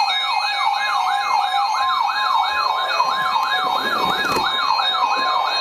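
Weather radio alert sounding a rapid yelping siren that rises in pitch about four times a second over a steady warning tone just above 1 kHz. It is the alarm that comes before a broadcast warning, here a special marine warning.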